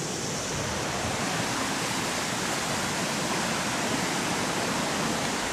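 Swollen, muddy floodwater rushing steadily down a creek over rocks and debris. It makes an even, loud rush with no breaks.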